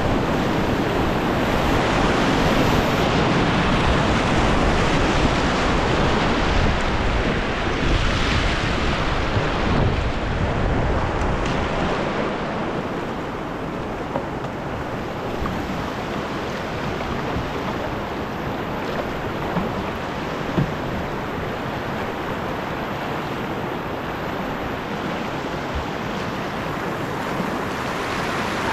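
Whitewater rapids rushing around an open canoe, heard up close from the boat with some wind buffeting the microphone. The rush is louder and deeper for the first dozen seconds or so, then eases to a steadier, lighter flow. A single sharp knock comes about twenty seconds in.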